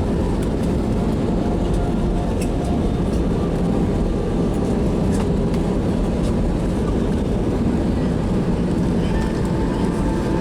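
Steady, loud rumble of an airliner cabin as the jet lands, with faint rattles of the cabin fittings.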